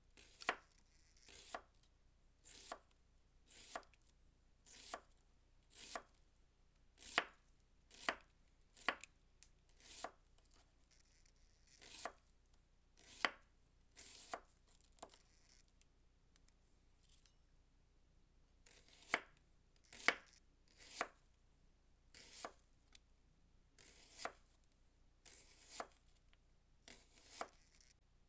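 Chef's knife slicing an onion half thinly on a plastic cutting board: each cut is a short crisp crunch ending in a tap on the board, about one cut a second, with a short pause partway through.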